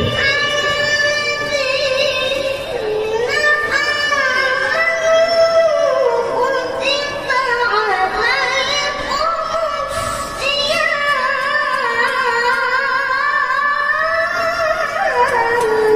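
A boy qori's high-pitched, melodious voice reciting the Quran in the sung tilawah style into a handheld microphone, with long held notes and quick ornamented turns of pitch.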